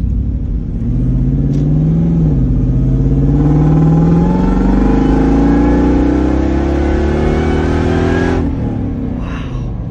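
Supercharged Toyota Tundra 5.7-litre V8 in a 4Runner accelerating hard, heard from inside the cabin. The engine note climbs, drops briefly at a gearshift about two seconds in, climbs again, and falls away suddenly about eight and a half seconds in as the throttle is released.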